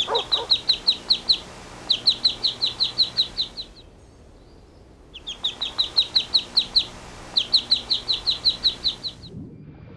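A songbird singing in four bouts of rapid high chirps, about six a second, with short pauses between them. A dog's bark is cut off at the very start.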